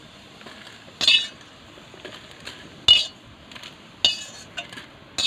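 Steel ladle scraping and clinking against a black iron kadai and a steel plate as fried beetroot and chillies are scooped out. Three sharp metal clinks come about a second apart, with lighter taps near the end.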